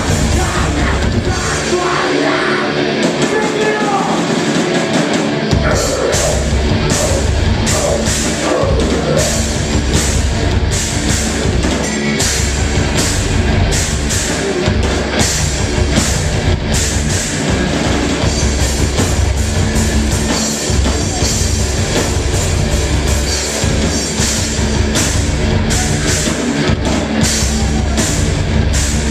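A live heavy rock band playing loud, with distorted electric guitars, bass and drums. The bass and drums drop out for a few seconds near the start, then the full band comes back in with a steady beat of about two cymbal hits a second.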